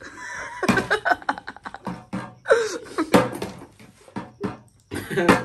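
A small, partly filled plastic soda bottle tossed in a bottle flip, knocking several times against a glass tabletop, with short bursts of voice and laughter in between.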